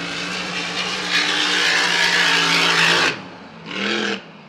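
Grand Prix class racing hydroplane's engine running at full throttle at a steady pitch, with a hiss that grows louder about a second in. It cuts off abruptly about three seconds in, and a brief fainter sound follows near the end.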